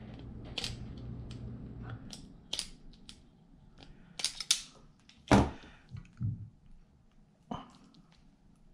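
Self-adjusting wire stripper clicking and snapping as it works the end of a red wire, a string of sharp separate clicks with a louder knock about five seconds in.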